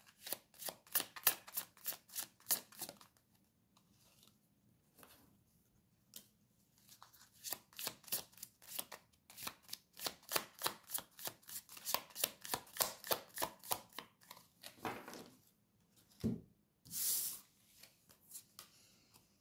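A deck of tarot cards being shuffled by hand: quick runs of soft card flicks in two spells, the second longer. Near the end comes a single soft knock and a brief swish of cards.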